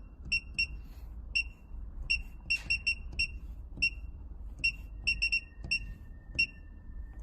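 Short, identical electronic beeps from an air compressor's touchscreen control panel, one per key press, coming at an uneven pace, often two in quick succession, as maintenance-hour values are keyed in. A low steady hum runs underneath, and a faint steady high tone joins about five seconds in.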